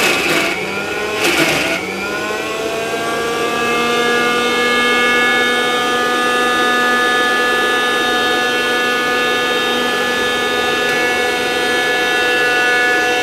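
Mixer grinder motor running with a steady whine, its pitch climbing slightly over the first few seconds and then holding. The egg-white and oil mayonnaise has thickened, so the motor is running freely and not grinding the mixture at all. Two short noisy bursts come in the first two seconds.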